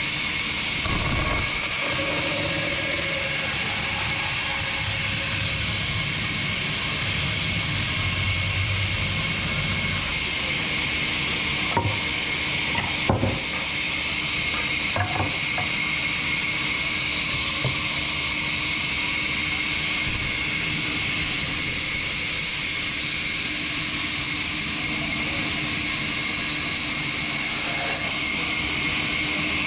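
Large vertical band saw running steadily, its blade hissing through timber with a constant high whine. A few sharp knocks about halfway through as the heavy wood is pushed and handled on the table.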